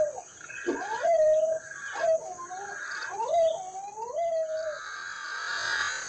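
An animal calling again and again, each call sliding quickly up and then holding a steady wailing note for about half a second, about once a second. The calls stop near the end.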